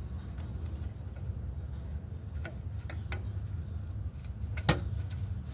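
Light metallic clicks and ticks from rear drum-brake hardware being worked loose by hand, with one sharper click near the end, over a steady low hum.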